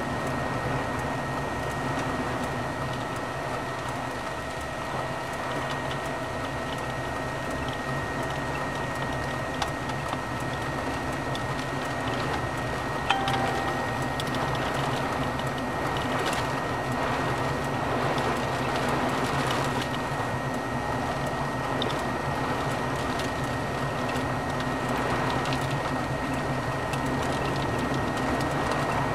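Steady noise inside a vehicle cabin, with a low engine hum and a constant high-pitched tone, and one small click about halfway through.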